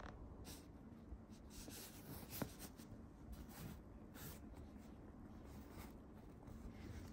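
Faint rustling and scratching of cloth as a Siamese cat paws at a gingham cloth beside a person's hand, with one sharper click about two and a half seconds in.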